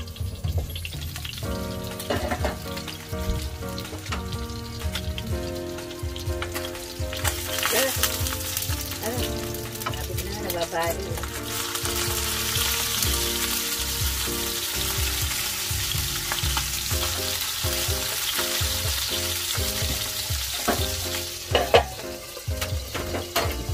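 Salmon steaks frying in oil in a covered pan, the sizzle growing much louder and brighter about halfway through once the lid is off, with a spatula scraping and clinking in the pan. Near the end the metal lid clanks back down onto the pan.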